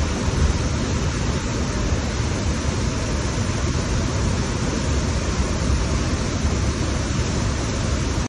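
Steady roar of a waterfall, a loud, even rush of falling water that cuts off suddenly at the end.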